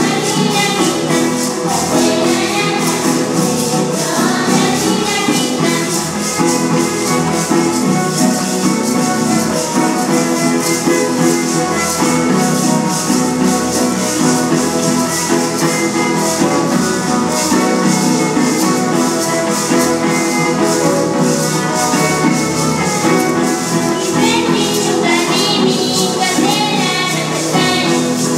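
Teenek dance music: violin and guitars playing a steady tune while the dancers shake hand rattles in a rapid, constant rhythm. Girls' voices sing over it near the start and again for the last few seconds.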